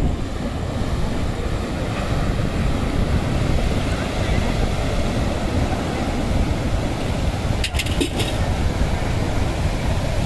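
Sea waves breaking and washing over a rocky shore, with wind buffeting the microphone as a heavy low rumble. A few sharp clicks come about eight seconds in.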